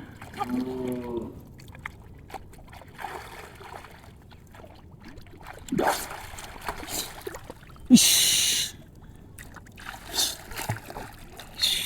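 Water splashing and sloshing in a shallow stream, with a short, loud splash about eight seconds in. A faint voice is heard near the start.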